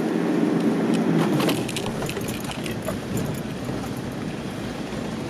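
Toyota Fortuner's 3.0 D4D turbodiesel engine working hard as the truck drives up through beach sand. It is loudest in the first second and a half, then steadier, with scattered knocks and rattles.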